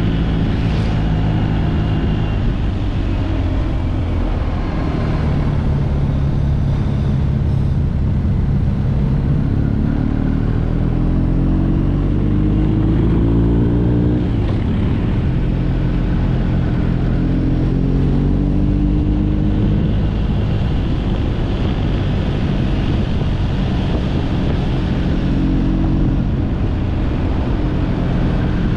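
Motorcycle engine running under way, over a steady low rush of wind on the microphone. The engine note climbs between about eight and fourteen seconds in, then settles to a steady pitch.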